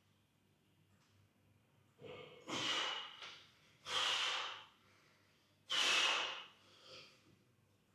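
A person breathing out hard, three forceful blasts of breath about two seconds apart, each lasting about a second, with a weaker one near the end.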